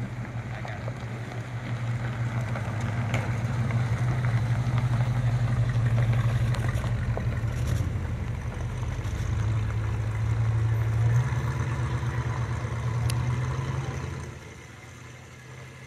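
First-generation Chevrolet Camaro's engine and exhaust rumbling as the car pulls away at low speed. It steps up in pitch about eleven seconds in and fades away a few seconds later as the car drives off.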